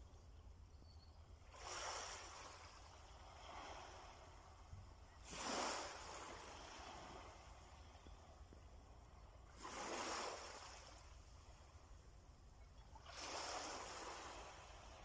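Faint waves breaking and washing on the shore: swells of surf noise every three to four seconds, each rising quickly and fading over a second or two.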